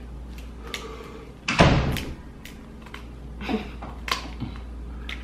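Snow crab leg shells being cracked by hand and snipped with kitchen scissors: scattered sharp cracks and clicks. One heavy thump about one and a half seconds in is the loudest sound.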